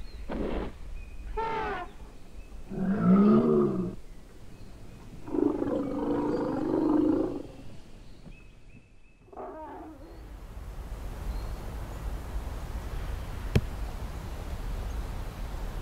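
Asian elephants calling: a run of short calls that rise and fall in pitch, the loudest about three seconds in, then a longer rough roar-like call around six seconds in and a last short one near the ten-second mark. After that comes a steady hiss of outdoor background noise, with one sharp click near the end.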